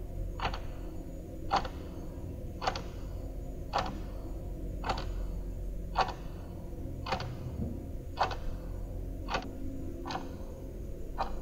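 Clock ticking steadily, about one tick a second, over a low steady hum.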